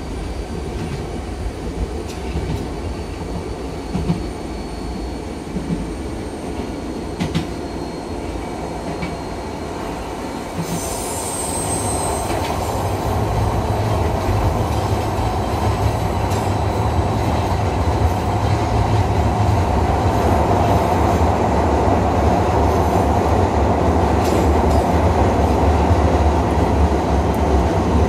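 Nagano Electric Railway 3500-series electric train running, heard from inside the car, with a few clicks from the wheels over rail joints. About eleven seconds in there is a brief high squeal, and then the running noise grows steadily louder as the train enters a tunnel.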